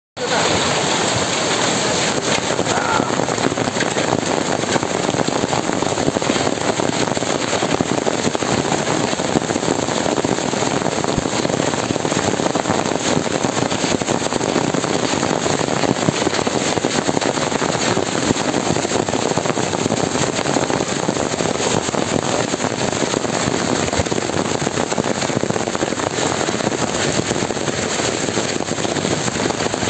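Heavy hail falling: a steady, dense clatter of countless small hailstones striking the ground.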